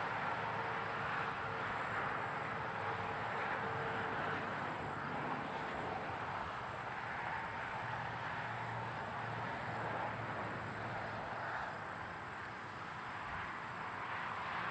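Close-up interstate highway traffic: a steady rush of tyres and engines from passing cars and trucks, swelling and easing as vehicles go by and dipping briefly about twelve seconds in. A thin, steady high tone runs underneath.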